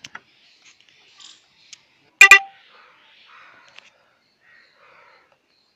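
A vehicle horn beeps twice in quick succession, short and loud, about two seconds in. Faint clicks and small rustles fill the rest.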